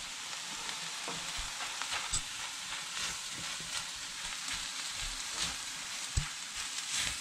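Flaked halibut, tofu and onion sizzling in a hot enamelled pan while being stirred and turned with a silicone spatula and a wooden spatula. A steady hiss runs throughout, with scattered light scrapes and knocks of the utensils against the pan.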